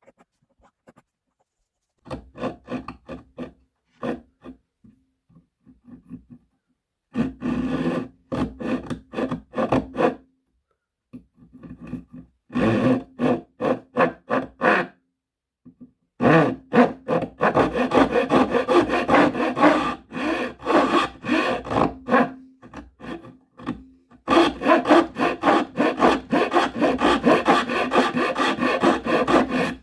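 A hand tool rasping back and forth in quick, even strokes, about four or five a second, in bursts of a few seconds with short pauses between. The work is typical of filing or sawing during a hammer restoration.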